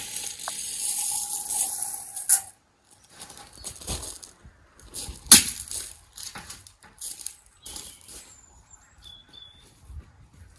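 A run of rustling, scraping noises from garden groundwork, with a sharp knock about five seconds in and a faint bird chirp near the end.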